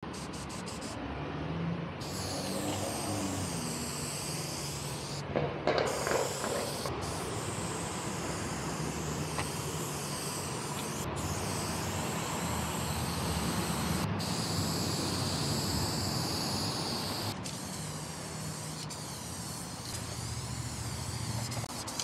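Aerosol spray paint cans hissing in long sprays broken by brief pauses, with a short clatter about five and a half seconds in. A steady low rumble of road traffic runs underneath.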